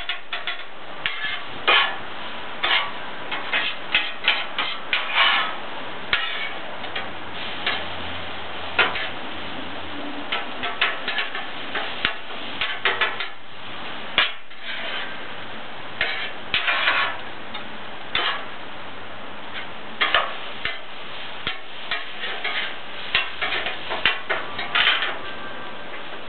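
Metal spatulas clacking and scraping on a Blackstone steel flat-top griddle as rice and onions are turned, in irregular clusters of sharp strikes, over a steady sizzling hiss.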